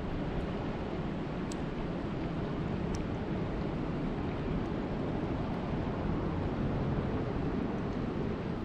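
Heavy rain falling in a steady, dense rush, with a few sharp drop ticks on top. It cuts off suddenly at the very end.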